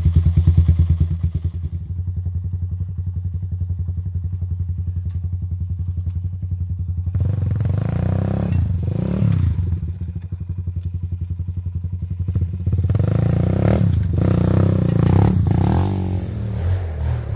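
A 1985 Honda ATC 200X three-wheeler's single-cylinder four-stroke engine is running with an even thump, steady at first. From about seven seconds in it revs up and eases off several times, as on a short ride.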